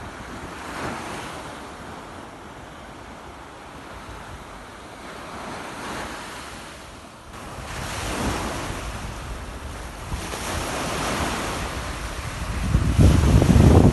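Sea waves washing in and drawing back, swelling and fading several times. Near the end a loud low rumble of wind buffeting the microphone comes in.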